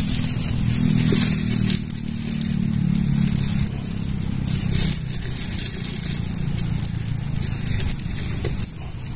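A motor engine hums steadily, stronger for the first half and weaker after about five seconds, over a constant hiss.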